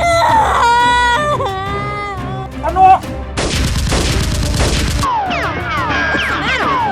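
Action-film soundtrack: music under a wailing voice, a sharp hit about three seconds in, then a burst of rapid gunfire sound effects, followed by many falling whistling tones.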